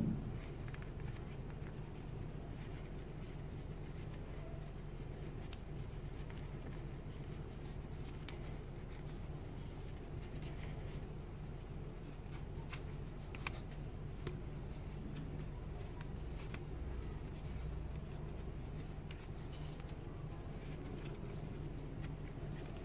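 Faint rustling of a small sewn fabric piece being turned right side out and pushed through with a pencil, with a few light clicks scattered through, over a steady low hum.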